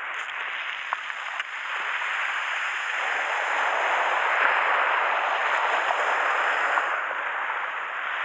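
Small waves breaking and washing up a pebble beach: a steady hiss of surf that swells and eases midway, with a couple of sharp pebble clicks about a second in.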